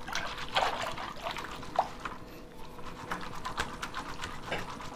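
Sattu and water being churned in a steel bowl with a wooden dal ghotni spun between the palms: uneven splashing and sloshing with light knocks of the wood, the sharpest about half a second and just under two seconds in.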